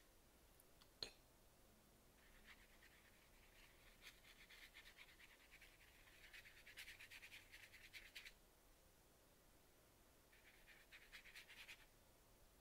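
Faint scratching of a fine watercolor brush stroking across textured paper, in two spells: a longer one from about two to eight seconds in and a shorter one near the end. A single sharp click about a second in.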